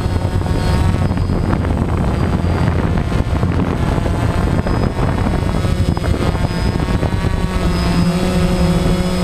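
Multirotor drone's motors and propellers running with a steady whine close to the microphone, the pitch shifting slightly near the end as it holds its hover.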